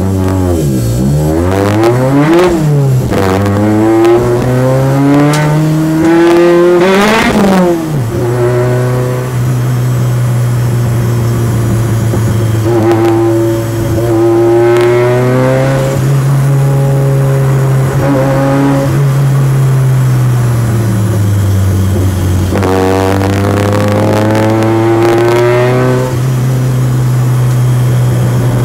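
Turbocharged 16-valve Peugeot 205 four-cylinder engine heard from inside the car under hard track driving. The revs climb and drop quickly several times in the first eight seconds, then hold a fairly steady note with one slow dip and recovery.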